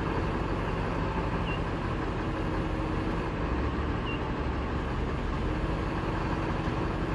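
Crane truck's engine running steadily, a low even rumble with a faint steady hum, with two faint high chirps about a second and a half and four seconds in.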